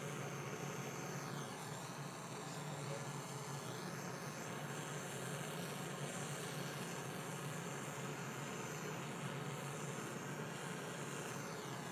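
Gas brazing torch flame burning with a steady hiss as a copper pipe joint is heated and brazed with silver rod.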